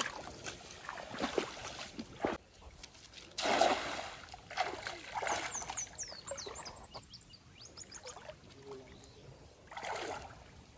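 Legs wading through a shallow, muddy stream: irregular swishing and splashing of water, with the loudest splash about three and a half seconds in.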